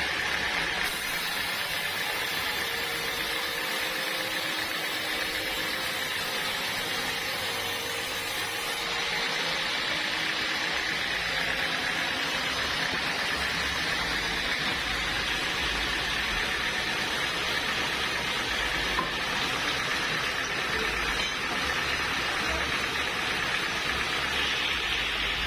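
Sawmill machinery running with a steady, even noise.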